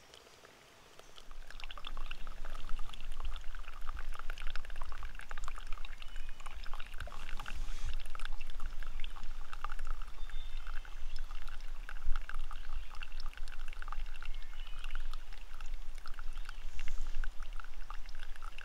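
Hot water poured from a metal camp pot into a paper filter of coffee grounds in a pour-over dripper, a steady trickling and splashing that starts about a second in and keeps going.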